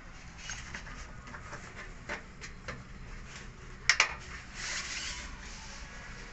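Light scraping and clicking of parts being handled, with two sharp clicks close together about four seconds in.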